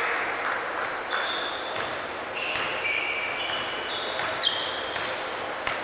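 Basketball sneakers squeaking on a hardwood gym floor as players run, many short high squeaks, with a basketball bouncing. One sharp knock about four and a half seconds in.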